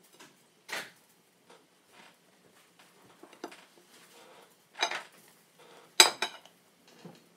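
A kitchen knife and a ceramic plate knocking together as cabbage leaves are handled on the plate: several short clinks and clatters, the loudest about six seconds in.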